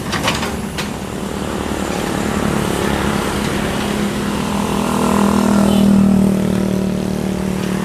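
Excavator diesel engine running, swelling louder about five seconds in and then easing back, with two sharp knocks near the start.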